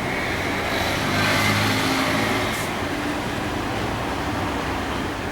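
A motor vehicle's engine running nearby, getting louder about a second in and easing off again, over a steady low hum.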